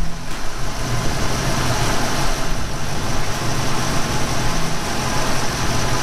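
The 5.0 V8 of a 1991 Ford Mustang GT idling steadily, heard from underneath the car at the transmission bellhousing. The clutch fork no longer rattles now that the failed throwout bearing has been replaced.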